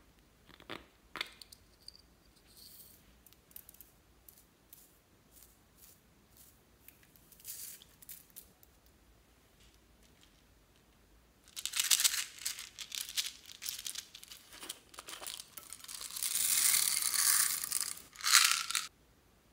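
Small beads rattling and pouring out of a small bottle into a bowl of foam beads: a loud, dense, hissing rattle in bursts from about halfway through, running continuously near the end before stopping abruptly. Before that, only faint scattered clicks and rustles as gold flakes are tipped from a small jar.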